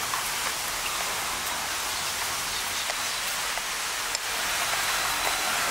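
Steady, even hiss of ambient noise with a few faint ticks.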